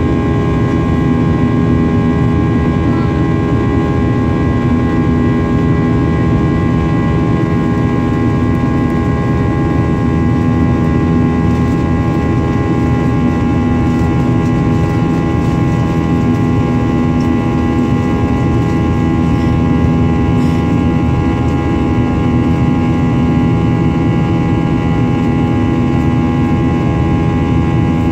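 Jet airliner's engines heard inside the cabin during the climb after take-off: a steady drone and rumble with several steady whining tones, unchanging throughout.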